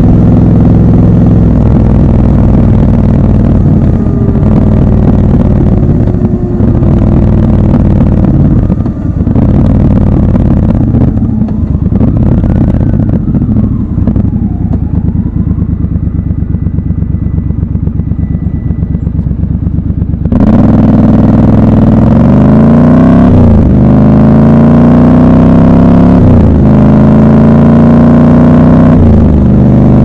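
Triumph Scrambler 1200 XC's 1200 cc parallel-twin engine, first cruising, then rolled off and idling at a stop. About two-thirds of the way in it is opened up suddenly and pulls away, the revs climbing and dropping back through three upshifts.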